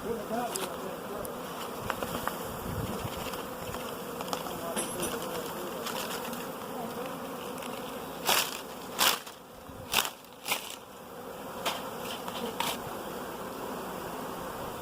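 A swarm of honey bees buzzing steadily around the hive box they are being hived into. Around the middle come several brief, sharp knocks or crackles, louder than the buzzing.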